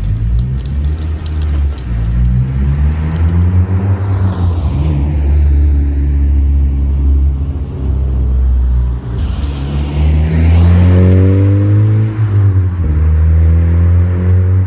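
Honda Civic Si's four-cylinder K24 engine with a Full Race cat-back exhaust, heard from inside the car with the windows down, pulling through the gears at part throttle. Its note climbs in pitch, drops suddenly at an upshift near the end, and then climbs again.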